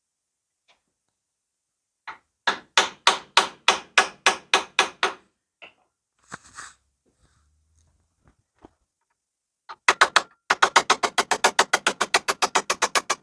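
Hammer blows in two quick runs: about ten strikes at roughly four a second, then after a pause a faster steady run of about eight strikes a second.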